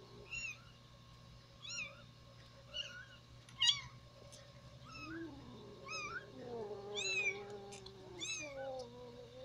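Young kittens mewing: short, high-pitched mews about once a second, with a longer, lower cry through the second half.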